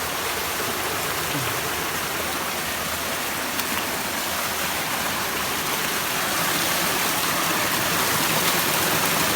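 Steady rushing water of a jungle stream or falls, an even hiss that grows slightly louder after about six seconds.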